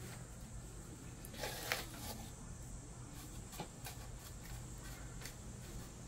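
Plastic hand scoop digging and stirring through a pot of gritty potting mix: soft grainy scraping, loudest about a second and a half in, with a couple of light clicks.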